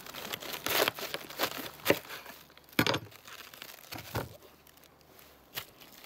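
Knife cutting through a raw head of white cabbage on a wooden cutting board: crisp crackling and tearing as the leaves split, with about five sharp knocks roughly a second apart.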